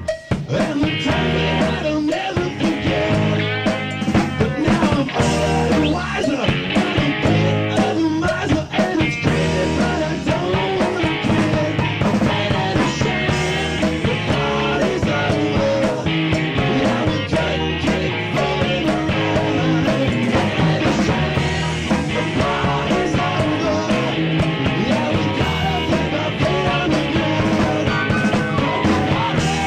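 A rock band playing a song live, with electric guitar.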